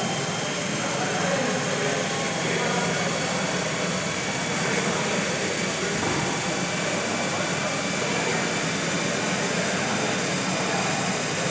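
Electric motor driving a centrifugal pump on a test rig, running steadily as its speed is turned up from about 1160 to 1330 rpm.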